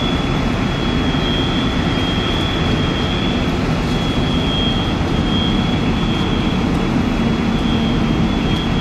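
Loud, steady engine roar from firefighting equipment running at the fire, with a continuous high-pitched whine over it.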